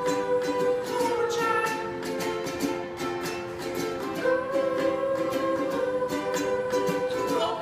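Song accompaniment between sung lines: a plucked string instrument, likely ukulele, strummed in a steady rhythm under held notes.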